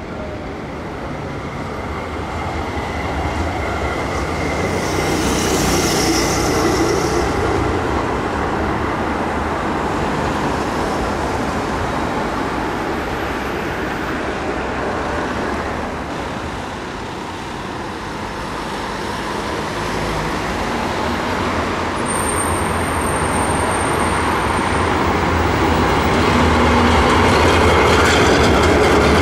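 Street traffic noise with the running of a green former Basel Düwag tram, growing loudest near the end as the tram passes close by.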